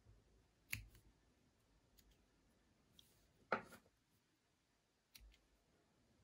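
Scissors snipping yarn ends: two sharp snips, about a second in and about halfway through, with a few faint clicks from handling in between.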